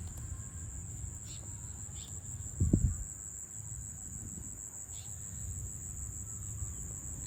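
Insects, likely crickets, trilling steadily as one continuous high-pitched buzz over a low rumble. A short loud low thump comes about two and a half seconds in.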